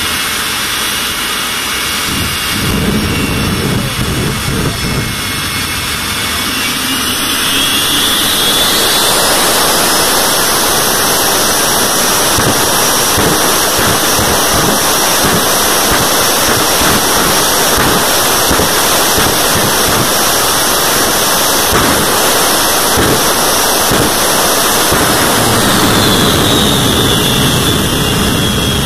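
Jet engine mounted on a fire truck running: its turbine whine rises in pitch and the sound grows louder about a quarter of the way in as it spools up, holds at high power, then the whine falls back near the end as it is throttled down.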